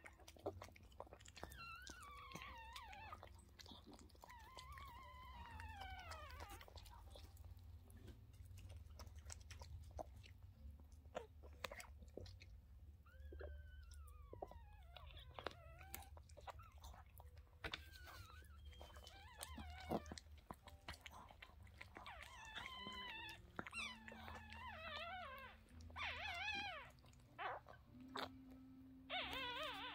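Yorkshire terrier mother licking and chewing at a newborn puppy's birth sac, a run of small wet clicks, over repeated high, wavering squeals from the newborn puppy that come more often near the end.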